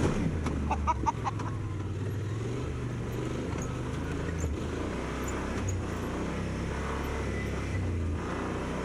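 Yamaha Wolverine X2 side-by-side's 847cc parallel-twin engine running at low revs while it crawls over rocks: a steady low drone heard from inside the cab. A few short clicks and squeaks come in about a second in.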